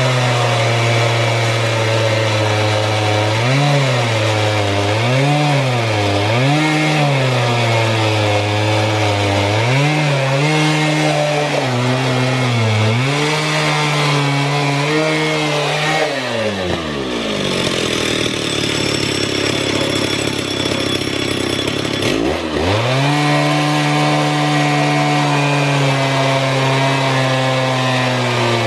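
Two-stroke chainsaw running at high revs as it rips a log in a portable chainsaw mill, its engine pitch dipping and recovering again and again as it labours in the cut. About two-thirds of the way through, the engine drops right down to idle for several seconds, then revs back up and carries on cutting.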